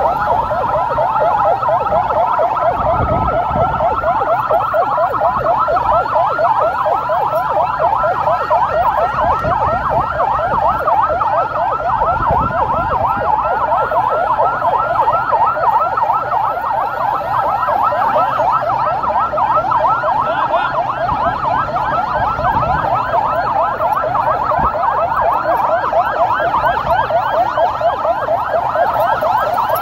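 Several vehicle sirens sounding together in a fast yelp, each sweeping up and down several times a second and overlapping one another, over a low rumble of vehicle engines and road noise.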